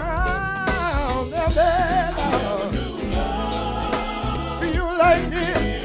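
Live gospel music: a male singer holding and bending long notes with vibrato between lyric lines, over a band with keyboard and drums.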